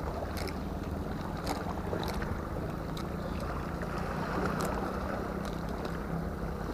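Wind on the microphone and sea water washing against a rock breakwater, under a steady low engine drone, with a few light ticks scattered through.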